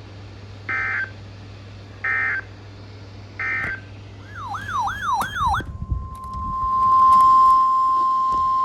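Three short bursts of EAS data tones, the warbling end-of-message code, evenly spaced about a second and a half apart. Then a quick falling sweep repeated about four times, and about halfway through a steady 1050 Hz NOAA Weather Radio warning alarm tone begins and grows louder.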